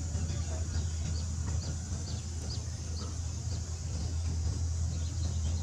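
Outdoor ambience: a steady low hum and a steady high hiss, with a run of short high chirps, about two a second, that die away a little past halfway.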